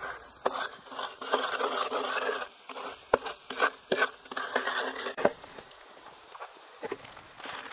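Hands-on food preparation: stretches of rubbing and scraping broken by a series of sharp knocks.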